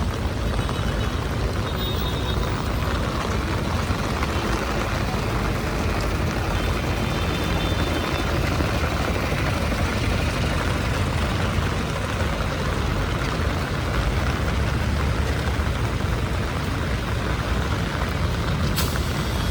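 Heavy rain falling on a city street with traffic: a steady hiss over a low rumble of vehicles. There is one brief click near the end.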